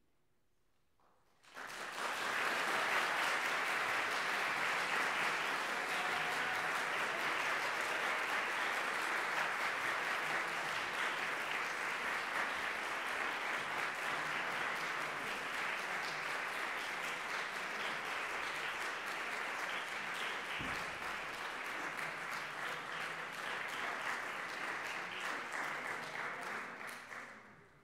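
Audience applauding: steady clapping that starts about one and a half seconds in and dies away near the end.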